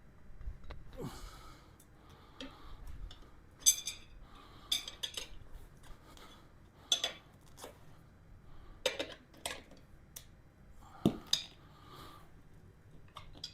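Steel tyre bead-breaker bars clinking and clanking against each other and the wheel while the tyre bead is being broken. The clinks are sharp, irregular and come several seconds apart.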